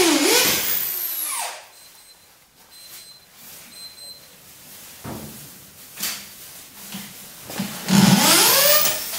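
Corded electric drill running in two bursts, its whine rising and falling in pitch as the speed changes. It stops after about a second and a half. A couple of short knocks follow in the quiet stretch, then the drill runs again near the end and slows as it stops.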